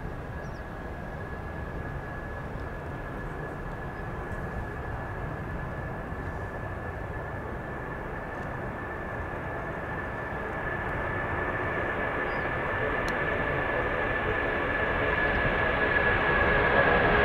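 Boeing 747-400F four-engine jet freighter at takeoff power: a steady jet noise with a constant high whine, growing steadily louder over the second half as the aircraft rolls down the runway and climbs out.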